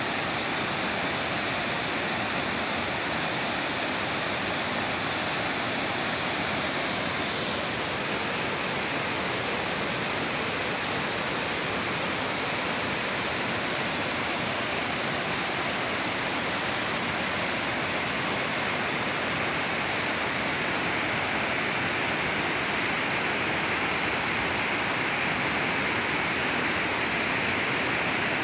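Water overflowing a dam spillway and a low weir and rushing over the rocky streambed below: a steady, even rush.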